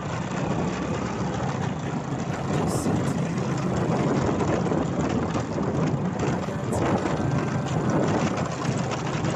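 Motor scooter engine running steadily under way on a rough dirt track, with wind and road noise and a few brief knocks.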